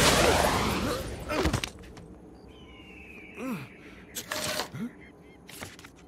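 Animated cartoon soundtrack: a loud rush of wind and dust for the first second and a half, then a few short squawking cartoon creature calls that rise and fall in pitch.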